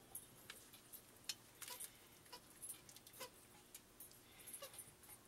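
Faint, irregular clinks and taps of a serving utensil against a stainless steel stock pot as stew is dished into a bowl.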